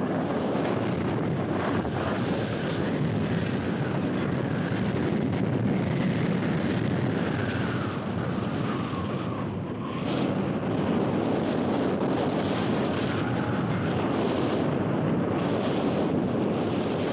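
Loud, steady rushing wind of a tornado, a dense wall of noise, with a faint whistle sliding down in pitch about halfway through.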